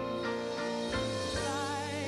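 A grand piano accompanying a woman singing, with a held note that wavers with vibrato from about one and a half seconds in.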